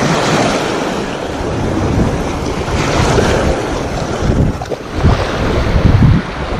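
Small waves washing over a rocky shoreline, with wind rumbling on the microphone, heaviest near the end.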